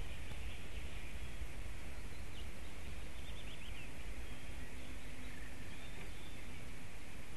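Faint short chirps of wild birds, with a quick run of them about three seconds in, over a steady outdoor background hiss and low rumble.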